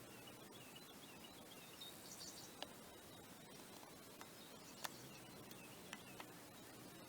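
Faint, high twittering chirps of hummingbirds at a feeder, mostly in the first two seconds, followed by a few sharp ticks.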